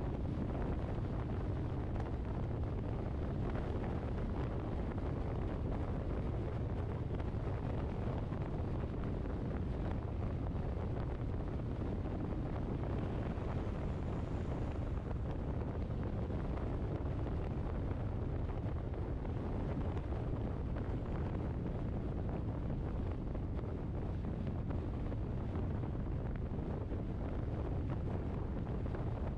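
Steady rumble of a vehicle on the move: deep road and engine drone with wind buffeting the microphone, unchanging throughout.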